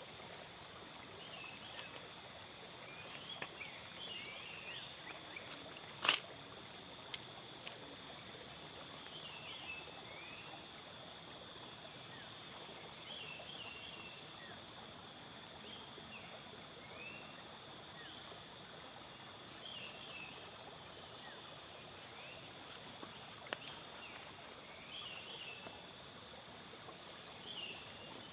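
Morning insect chorus: a steady high-pitched drone with a cricket's short pulsed trills recurring every several seconds, and brief bird chirps scattered through it. A single sharp click about six seconds in.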